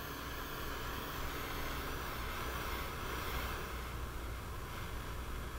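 Heat gun running with a steady hiss and low hum, heating the end of a heat-shrink solder butt connector to shrink it onto the wire.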